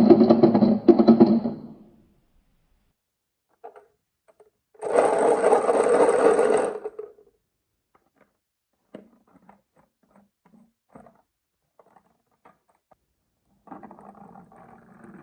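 A small geared electric toy motor whirring in runs: it stops about two seconds in, runs again for about two seconds from the fifth second, and starts once more, quieter, near the end. Scattered light clicks fall in between.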